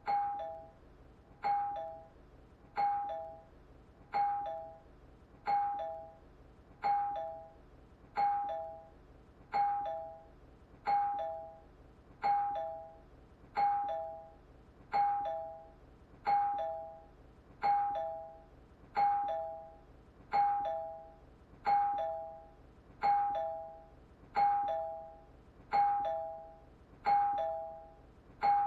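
Doorbell chiming its two-note ding-dong, high note then low note, over and over, each ring starting sharply and fading, about once every second and a half.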